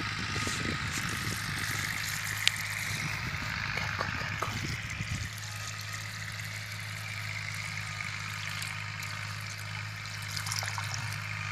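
Water trickling and pouring steadily out of the mouth of a tipped earthen clay pot onto grass. A single sharp click comes about two and a half seconds in.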